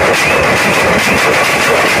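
A troupe of stick-beaten drums, shoulder-slung side drums and a bass drum, played together in a fast, dense, unbroken beat that is loud throughout.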